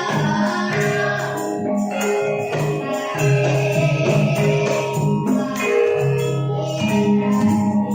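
Javanese gamelan ensemble music: metal percussion instruments ring out held, bell-like notes that change every second or so.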